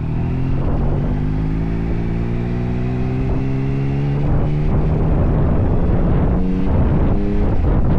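Yamaha Tracer 9's three-cylinder engine pulling steadily, its note rising slowly as the bike gathers speed. About four seconds in the note gives way to wind buffeting on the microphone, with the engine showing through only briefly near the end.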